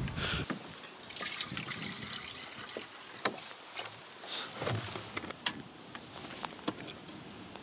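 Water poured from a large plastic bottle into a metal kettle, trickling and splashing for about four seconds, followed by a few sharp clicks and knocks of handling.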